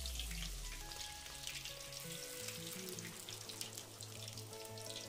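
Masala-coated mrigal fish pieces deep-frying in hot oil, a steady sizzle with dense fine crackling, over background music with low held notes.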